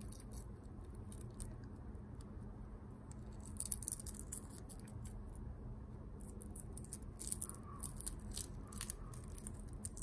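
Boiled quail eggshells crackling and crinkling as they are peeled by hand, a scatter of small sharp ticks that bunch up about four seconds in and again near the end, over a faint steady low hum.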